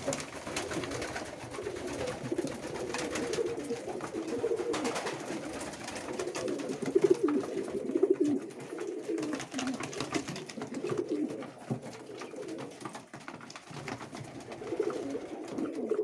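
A flock of racing pigeons cooing continuously in a small wooden loft, many overlapping low, warbling coos rising and falling in loudness.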